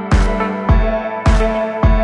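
Background music with a steady beat: a kick drum about twice a second under held chords.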